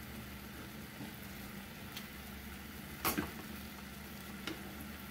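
Cubed beef frying in a skillet with a steady sizzle, broken by a few sharp clicks of a utensil against the pan, the loudest about three seconds in.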